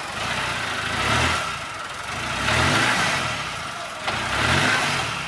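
Land Rover Discovery's engine revving in three swells, each rising in pitch and dropping back, as the 4x4 pulls through deep mud.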